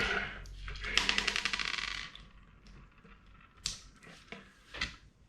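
Plastic LEGO Technic parts clicking and rattling as they are handled: a quick run of rapid clicks about a second in, then a couple of single clicks.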